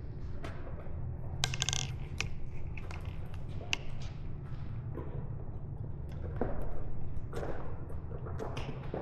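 Metal tools and small bike parts clinking and tapping, with scattered sharp clicks and one bright metallic ring about a second and a half in.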